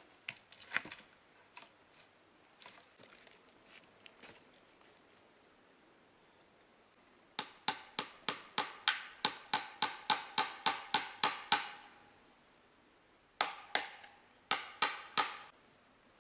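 Hammer driving a nail into a tree trunk: a quick run of ringing metallic blows, about four a second for some four seconds, then after a pause four more. Before the blows come a few light wooden knocks as a wooden ladder is set against the trunk.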